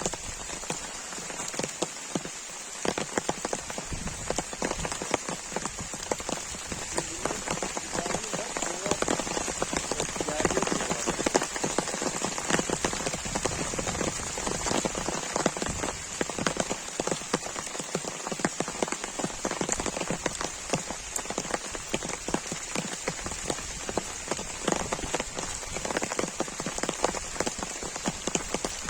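Heavy rain falling steadily, dense drops pattering on a nearby surface.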